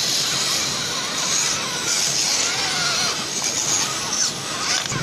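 Radio-controlled scale off-road truck driving, its small electric motor and gearbox whining and shifting in pitch with the throttle over a steady hiss.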